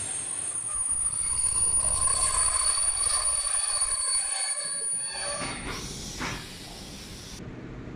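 Passenger coaches of a TLK train rolling slowly into a platform, their brakes squealing in steady high tones as the train slows for its stop. The squeal fades out about six seconds in, leaving a quieter rumble.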